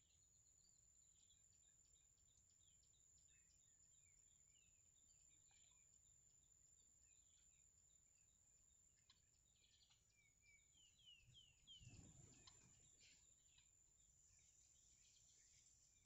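Faint high bird chirps, short and often falling in pitch, scattered throughout over a steady high whine, with a brief louder low noise about twelve seconds in.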